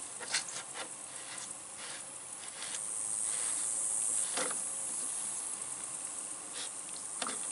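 A scatter of light clicks and knocks from a plastic one-gallon pump sprayer as its pump top is fitted and screwed down. Under them runs a steady high-pitched insect buzz, swelling a little a few seconds in.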